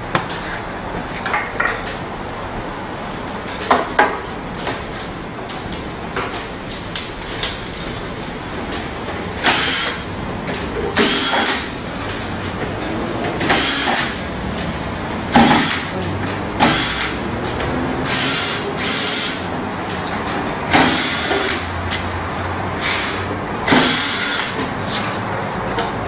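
Cordless drill-driver running in short bursts, about eight times in the second half, working the screws of a microwave oven's casing. Lighter clicks and knocks come between the bursts.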